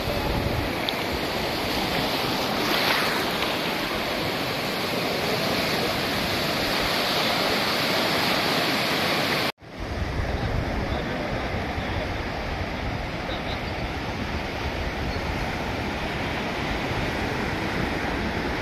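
Sea waves breaking and washing on a sandy beach, with wind on the microphone. A little past halfway the sound cuts out for an instant, then comes back duller, with more low wind rumble and less hiss.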